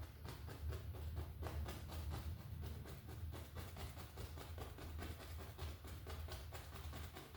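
Paintbrush dabbing oil paint onto a stretched canvas in quick, repeated taps, several a second, over a steady low hum.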